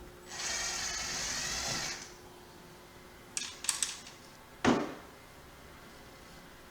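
A cordless drill-driver runs steadily for about a second and a half, then a few sharp clicks and one loud knock follow.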